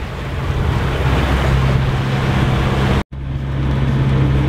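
A sailing yacht's engine running at a steady cruising speed under motor, a low even drone, with wind and sea noise over it. The sound cuts out for an instant about three seconds in, and the drone carries on.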